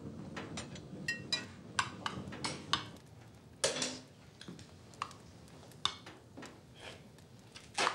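Scattered metallic clanks and clinks at an old kitchen stove, its iron hob rings and lid knocking as clothes are pushed into the fire. A few clinks ring briefly about a second in, and a heavier knock comes about three and a half seconds in.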